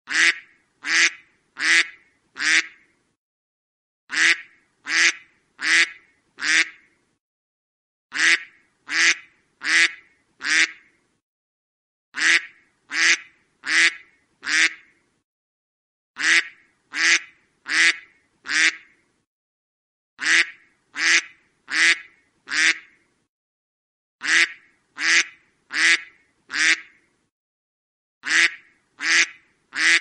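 A duck quacking in sets of four quick quacks, one set every four seconds, with silence between the sets and the same pattern repeating evenly throughout.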